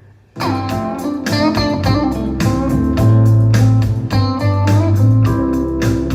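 Guitar music with heavy bass played through a portable Bluetooth speaker for a sound test, starting suddenly about half a second in with plucked guitar notes over a strong, steady bass.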